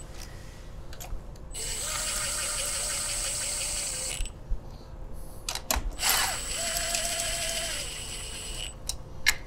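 Cordless impact driver running bolts into an aluminium engine crankcase on its lowest setting, so as not to strip the threads in the case. It runs twice for about two and a half seconds each with a fast rattle, and there are a few sharp clicks as the bit is moved to the next bolt.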